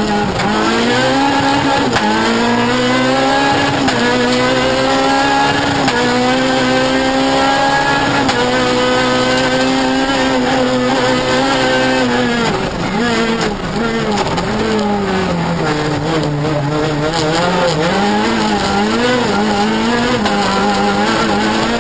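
Renault Clio R3 rally car's two-litre four-cylinder engine, heard from inside the cabin, run hard through the gears on a rally stage. The engine note repeatedly climbs and then drops, with a longer, deeper fall in pitch about two-thirds of the way through.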